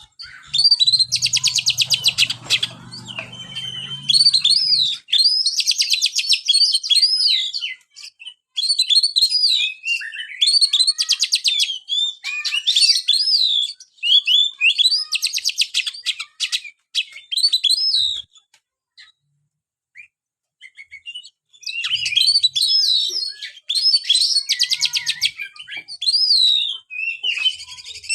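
Oriental magpie-robin (kacer) singing: phrases of whistled notes mixed with rapid buzzy trills, with a pause of a few seconds a little past the middle.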